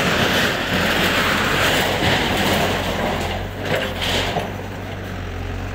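Backhoe loader's diesel engine running steadily while the demolition makes a loud crunching, scraping noise of breaking debris and sheet metal. The noise is strongest for the first few seconds, and a couple of sharper knocks follow.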